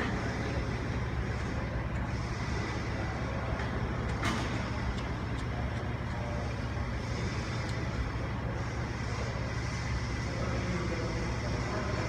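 Steady low drone of a running machine or engine, with a single sharp click about four seconds in.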